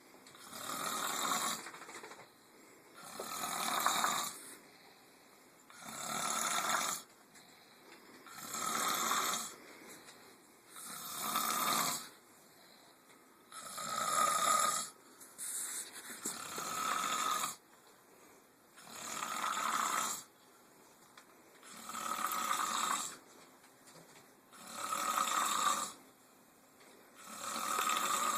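Snoring during sleep: one snore about every two and a half to three seconds, each lasting about a second and a half, in an even rhythm.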